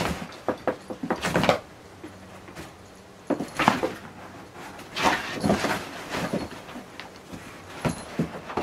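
Cats scrambling about in a cardboard box and clambering over its rim: claws scratching and cardboard rustling and bumping in several short bursts.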